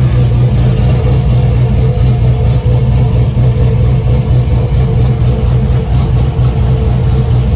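Car engine idling steadily, heard close beneath the car at the exhaust pipe and muffler: a loud, even low rumble with no revving. The owner says the muffler needs fixing.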